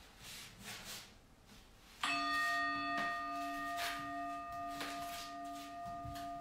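Singing bowl struck once about two seconds in, its tone ringing on steadily with a slow pulsing wobble in the lowest note.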